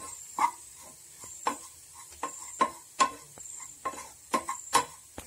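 A wooden spatula stirring grated coconut in hot ghee in a nonstick pan. It makes repeated scrapes and taps against the pan, roughly two a second, over a faint sizzle.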